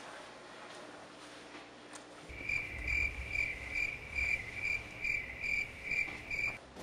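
A couple of seconds of faint room tone. Then a cricket starts chirping in a steady rhythm, about two chirps a second, over a low background rumble, and the chirping stops shortly before the end.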